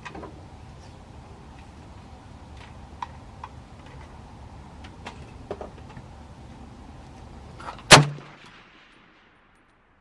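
A single rifle shot from a PSL firing 7.62x54R, loud and sharp, about eight seconds in, after a few faint clicks.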